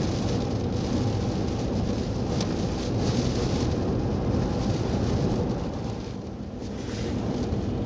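Gale-force storm wind buffeting the microphone: a heavy, continuous rumble with a brief lull about six seconds in.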